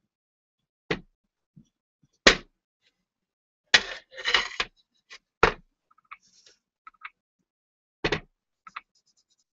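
A glazed ceramic bowl handled over a work tray: several sharp single knocks a second or more apart, with a short rubbing scuff about four seconds in and a few faint ticks near the end.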